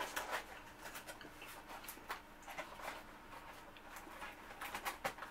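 Fast-food packaging being handled: a Big Mac's cardboard box and paper rustling and crinkling in short irregular bursts, with light clicks.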